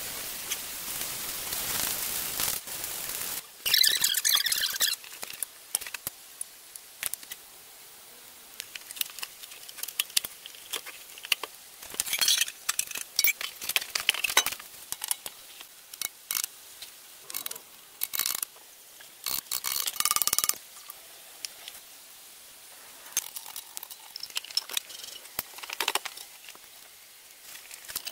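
Aerosol spray-paint can hissing in two bursts, followed by a long series of light metallic clinks, taps and scrapes as steel engine parts and tools are handled and fitted.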